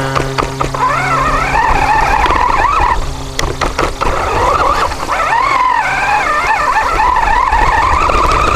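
Small robot rover's drive motor and wheels running over the ground, a whine that wavers up and down in pitch as it speeds up and slows, over a low rumble and a few knocks.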